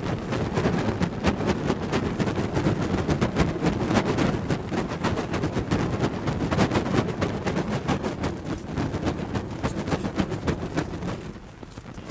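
A burning torch swung through the air: the fire's low, surging roar with dense rapid crackling. It dies down briefly near the end, then surges back.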